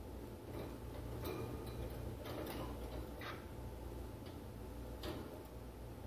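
Irregular small clicks and taps, about eight or nine, from a cockatiel and budgies moving about their wire cage: beaks and feet on the bars and perches.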